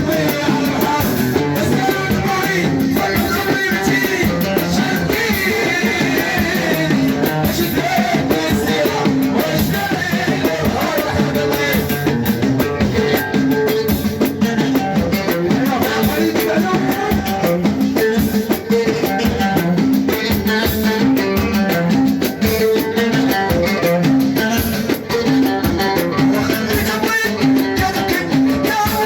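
Moroccan chaabi wedding music played live: a band with driving drum percussion, stringed instruments and singing, at a loud, steady level.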